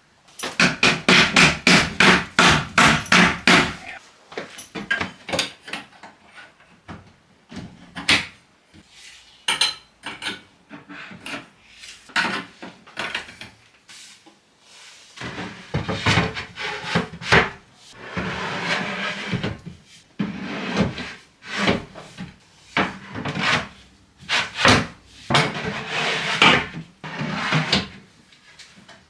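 Hammering on wooden wardrobe panels: a fast run of sharp knocks, about five a second, for the first few seconds. Scattered knocks and wooden scraping follow as the panels are worked into place.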